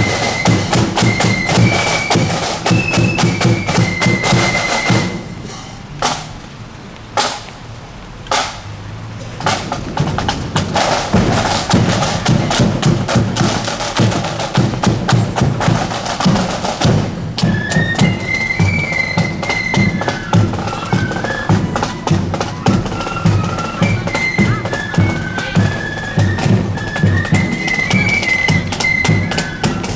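Marching flute band playing: flutes carry a tune over rapid drumming. About five seconds in the flutes stop and the drums drop to a few single beats, then the drumming picks up again, and the flutes come back in a little past halfway.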